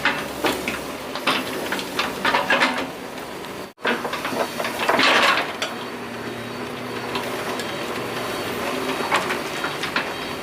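Doosan 140 excavator's engine running steadily, with a series of sharp knocks and clanks over it, most of them in the first few seconds and a few more near the end, and a short rushing burst of noise in the middle.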